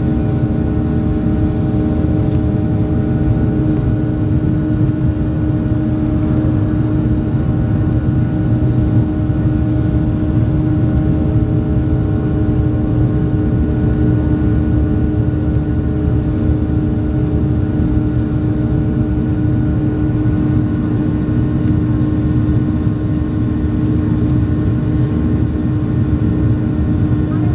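Boeing 737-700's CFM56-7B jet engines running steadily, heard from inside the cabin: an even rumble with a constant drone that neither rises nor falls.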